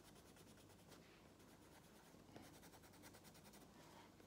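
Faint scratching of a coloured pencil shading on paper in repeated quick strokes.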